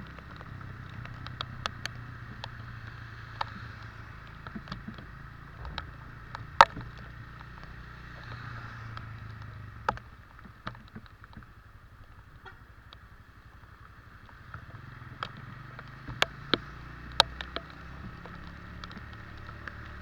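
Steady vehicle and road noise from travelling through the rain on a wet street, with scattered sharp ticks throughout; it eases off for a few seconds around the middle.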